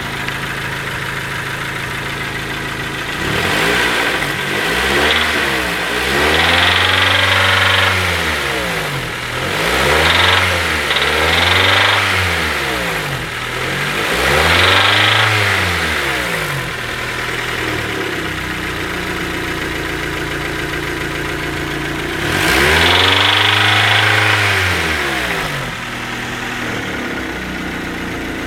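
Nissan QG15 1.5-litre four-cylinder petrol engine idling and revved up and back down five times, with a knock the owner can't identify.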